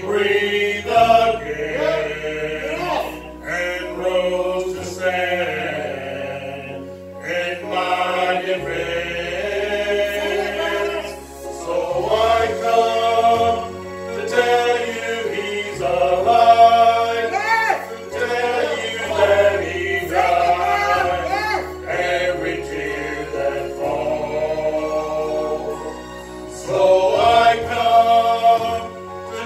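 Gospel song sung by a group of voices with instrumental accompaniment, its held bass notes changing every few seconds.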